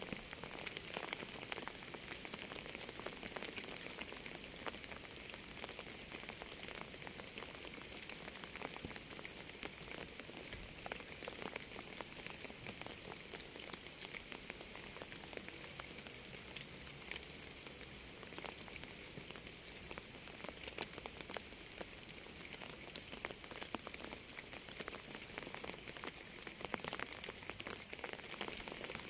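Steady rainfall: an even hiss of rain with many individual drops ticking sharply close by, unbroken and without any music.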